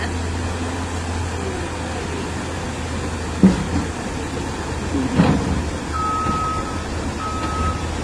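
Caterpillar tracked excavator's diesel engine running steadily as the machine travels, with a couple of knocks midway and its travel alarm beeping three times near the end.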